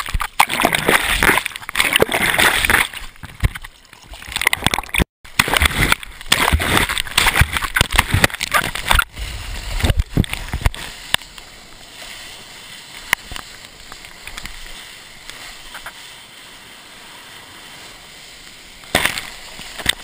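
Seawater splashing and rushing over a wrist-mounted camera in the surf. It is loud and churning for the first half, cutting out for a moment about five seconds in, then settles to a quieter steady wash of water with one more splash near the end.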